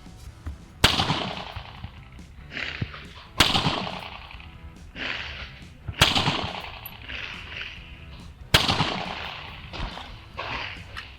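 Four single gunshots, about two and a half seconds apart, each with a ringing tail: handloaded cartridges test-fired one at a time over a chronograph.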